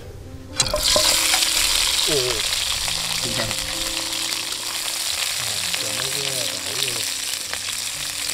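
Tomato wedges dropped into hot annatto oil in a wok: a sudden sizzle about half a second in, then a steady frying hiss that eases slightly.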